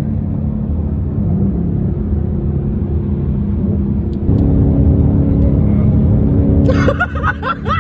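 Car engine running steadily, getting louder about four seconds in as it pulls harder.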